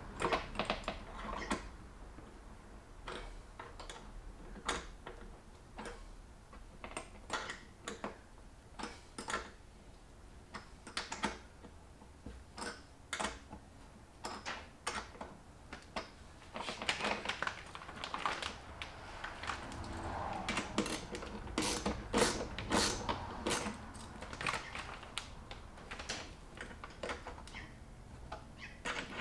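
Irregular light clicks and taps of small metal fittings and a hand tool being worked on the mounting hardware of a plastic motorcycle fuel tank. The clicks come thickest in the middle stretch, mixed with plastic bag rustling.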